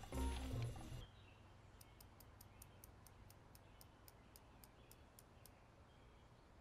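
A short tail of music cuts off about a second in. Then a bicycle freewheel clicks faintly and evenly as it coasts, about five light ticks a second, stopping after some three seconds.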